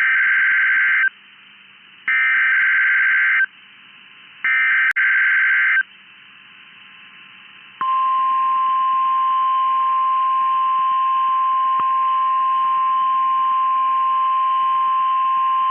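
NOAA Weather Radio required weekly test signal. Three short bursts of SAME digital header data, each a buzzy warble about a second long, are followed about eight seconds in by the Weather Radio alert tone, a single steady high tone (1050 Hz) that starts abruptly and holds.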